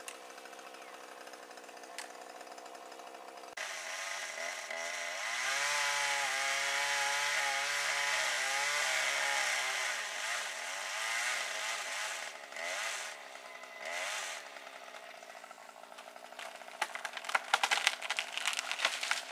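Chainsaw idling quietly, then run up to full throttle for several seconds, its pitch wavering as it cuts into a dry-rotted chinaberry limb, followed by a couple of short revs. Near the end comes a run of sharp loud cracks as the wood gives way.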